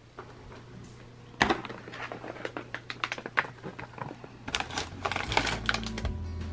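Plastic snack wrappers crinkling and rustling as a hand rummages through packets on a wire shelf: a quick, irregular run of sharp crackles and clicks that starts about a second and a half in.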